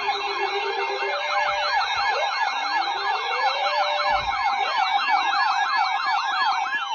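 Layered sirens: a fast yelping warble of about five sweeps a second over a steady tone, with slower rising wails underneath through the first part.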